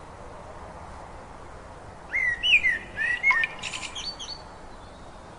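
Bird chirping: a short burst of whistled calls that bend up and down in pitch, starting about two seconds in and ending with quick higher notes, over a steady hiss.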